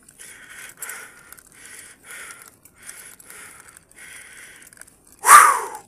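A cyclist's hard, rhythmic breathing, about two breaths a second, from the effort of pedalling up a steep mountain climb. One sudden loud burst comes about five seconds in.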